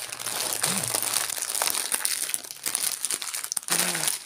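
Clear plastic bag crinkling and rustling as it is handled and squeezed.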